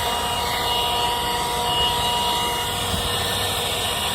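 Leaf blower running at full speed, a steady high whine over rushing air, blowing debris off a bush hog.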